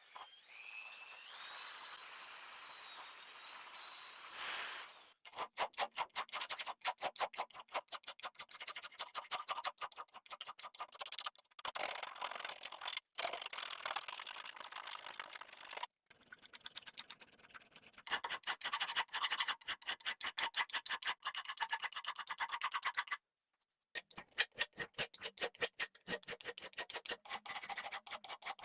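Hand work on a rusty hatchet's metal: a few seconds of a steady high whine that rises briefly near its end, then long runs of quick back-and-forth scraping strokes, several a second, with two sharp knocks about ten seconds in.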